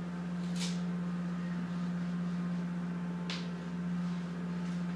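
A steady low hum, with two faint, brief rustles as a ripe banana's peel is torn back by hand.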